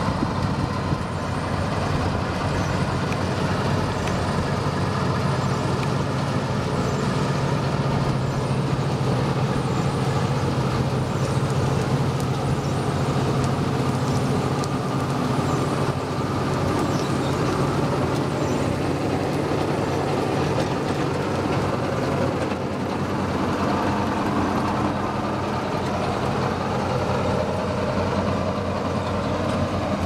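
Kartar 4000 Crop Cruiser combine harvester running steadily while harvesting, its Ashok Leyland Hino diesel engine giving a continuous low drone.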